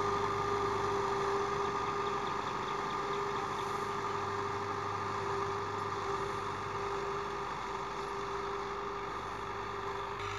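Fiat 640 tractor's diesel engine running steadily under load as it pulls a field implement over ploughed ground, slowly fading as it moves away.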